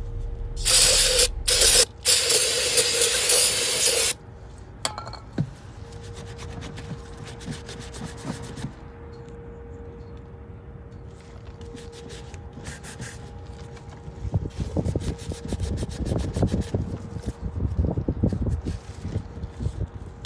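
Aerosol cleaner sprayed in three hissing bursts, the last about two seconds long, followed by quieter scraping and rubbing that grows louder near the end.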